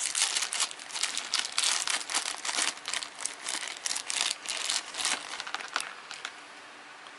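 Thin clear plastic bag crinkling and crackling in the hands as it is opened and the small toy parts are tipped out. The crinkling stops about six seconds in.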